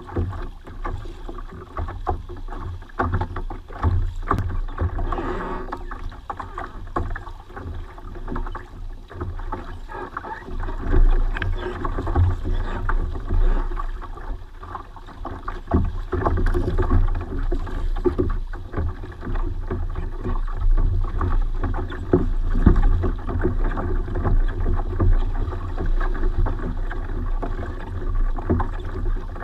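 Choppy water slapping irregularly against a plastic kayak hull, over a steady low rumble.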